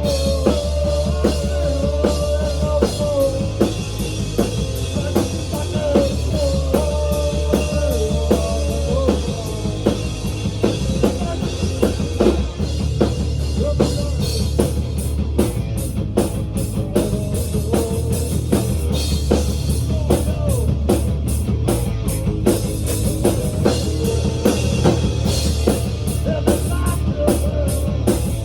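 Rock music with a fast drum-kit beat, heavy bass and guitar.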